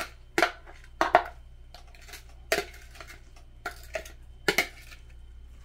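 Kitchen utensils knocking and clinking against cookware in about eight irregular, sharp strikes, two of them in quick pairs.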